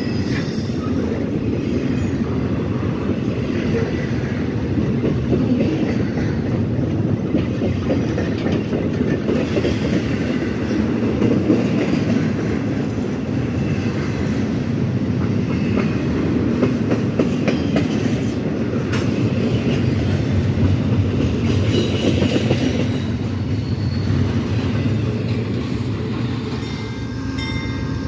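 Intermodal freight train of highway trailers on flatcars rolling past close by: a steady rumble of car wheels with a dense clatter over the rail joints.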